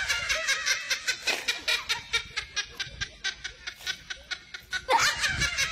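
Snickering laughter: a quick, even run of short laughs, about five a second, louder near the end.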